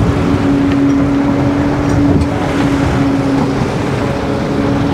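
Boat engine running steadily at one constant pitch while trolling lures, over a wash of wind and water noise.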